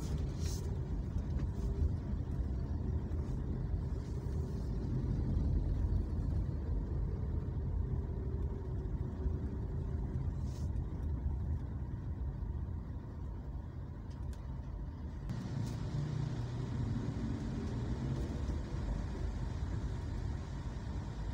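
Steady low rumble of a vehicle driving slowly through street traffic: engine and tyre noise, with a faint engine tone that sinks in pitch over the first ten seconds. There are two brief ticks, one near the start and one about halfway through.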